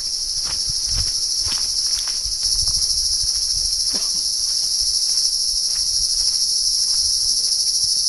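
A dense, steady insect chorus, a continuous high-pitched buzz that dominates the sound and grows a little louder about two and a half seconds in. Faint scattered ticks and knocks sit beneath it.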